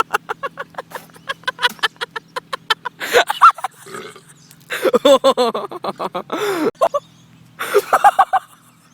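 A person gagging and retching after swallowing a mixture of fridge condiments. First comes a quick run of short throaty gulps and gags, about five a second. Then three longer retching heaves follow, the middle one the longest.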